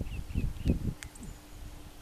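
Rustling and handling noises from plants and wood-chip mulch as a person picks at the ground, two short ones in the first second, then quieter. A few short bird chirps come about a quarter second in.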